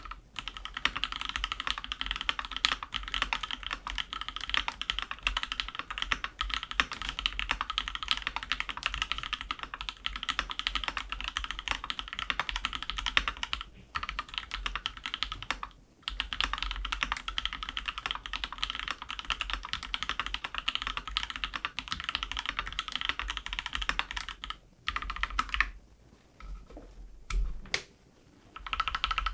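Custom mechanical keyboard with lubed TKC Banana Split linear switches on an aluminium plate, typed on in a dense, continuous run of keystrokes. The typing breaks off briefly twice around the middle and thins to a few separate keystrokes with pauses near the end.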